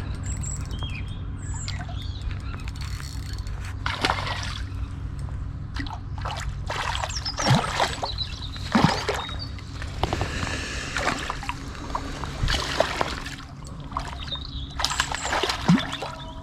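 A hooked pike splashing and thrashing at the surface in a run of short bursts while it is played in on light lure tackle. Birds chirp faintly in the background.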